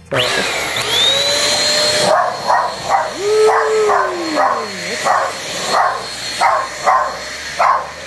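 Nequare stick vacuum cleaner switched on, its motor spinning up with a rising whine and settling into a steady high whine. About two seconds in, dogs start barking at it, about two barks a second, over the vacuum's running.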